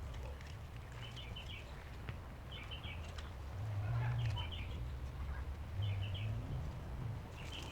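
A songbird singing the same short phrase of a few quick high notes over and over, about every second and a half. A low steady rumble runs underneath, louder around the middle.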